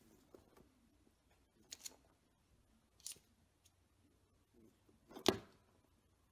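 A cat shifting on carpet next to a plastic baby gate: a few faint scratchy clicks in a quiet room, the sharpest about five seconds in.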